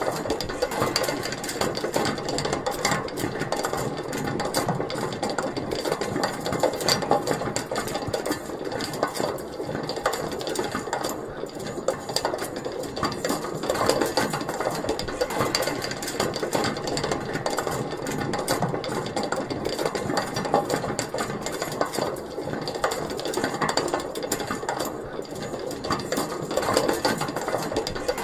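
Metal pulley mechanism with its small wheel spinning, giving a steady, rapid metallic rattle of many fine clicks without a break.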